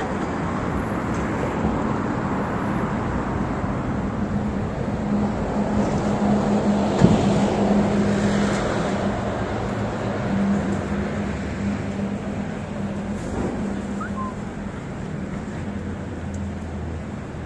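City street traffic: cars going by and a heavier vehicle's engine running close by, its steady hum growing louder towards the middle and then fading. There is a single sharp knock a little before halfway through.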